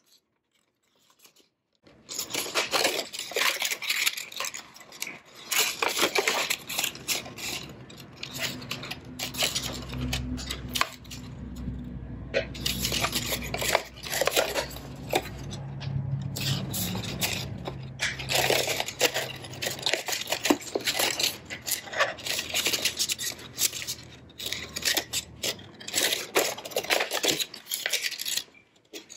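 Printed paper car being folded and creased by hand along its glue tabs: an irregular run of crisp crinkling and crackling, starting about two seconds in.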